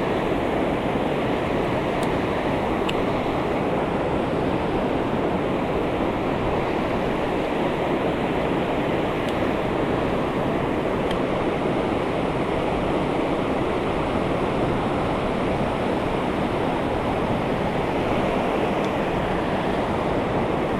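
Rushing water of a mountain stream, a steady unbroken wash.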